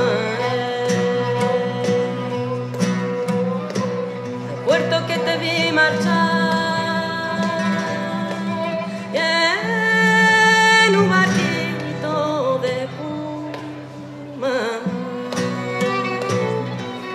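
Music: a voice singing over guitar.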